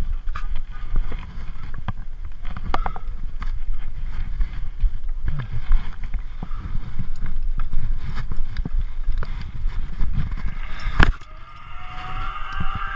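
Metal clinks and clicks of carabiners and harness hardware over a steady low rumble of wind and handling on the body-worn camera. About eleven seconds in there is a sharp metallic clack, then the whirring whine of a zip-line pulley trolley rolling along the steel cable, rising and falling in pitch.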